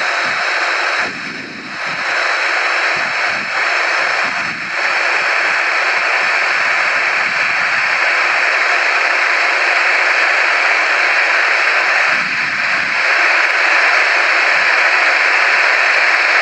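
Boeing 737-800's turbofan engines running at taxi power as the jet turns on the runway: a steady rushing noise with a high, even whine on top, growing a little louder after about thirteen seconds.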